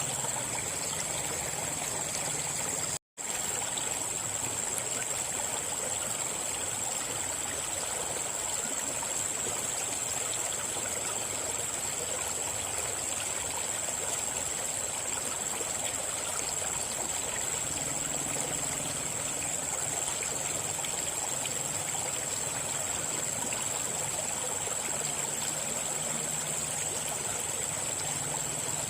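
River water flowing and trickling steadily, an even rushing hiss, with a steady high thin tone running above it. The sound cuts out completely for a split second about three seconds in.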